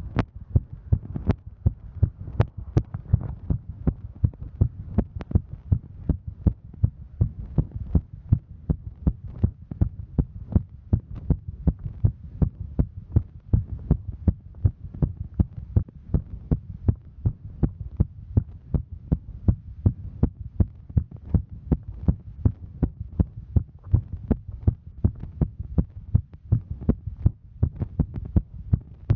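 A woman's heartbeat while hiking: a steady, even rhythm of low thuds over a faint low hum.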